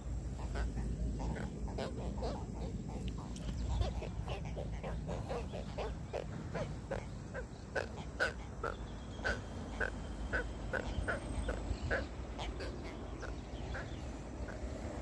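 A small catfish croaking in the hand after being pulled from the water: a steady series of short grunting croaks, about two a second.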